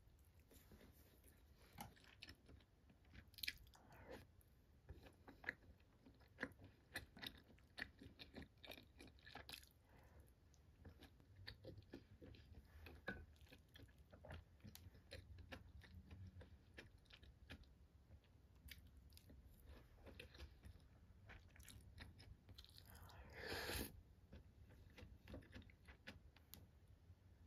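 Faint close-up chewing and biting of gimbap and cream tteokbokki, with many small crunches and clicks. A louder brief noise about 23 seconds in.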